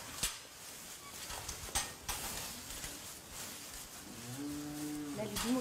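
A Holstein cow that has just calved gives one low moo, about a second long, near the end. A few light knocks come in the first couple of seconds.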